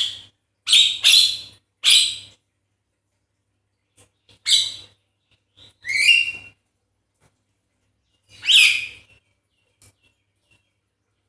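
Javan myna (jalak kebo) giving a series of about seven short, harsh, rasping calls in irregular bursts, a few of them ending in a brief whistled slur.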